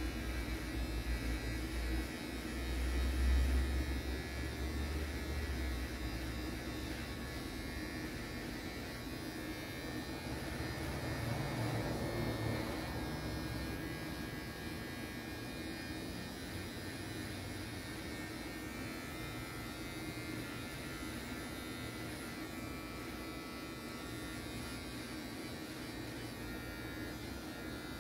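Cordless electric hair clipper buzzing steadily as it trims a man's beard and mustache, swelling briefly in loudness twice.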